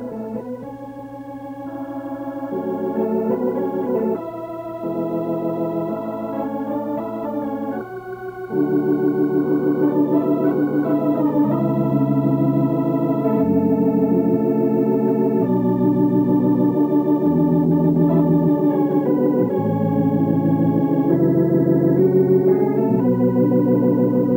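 Organ music: slow, sustained chords with a wavering vibrato, getting louder about eight seconds in.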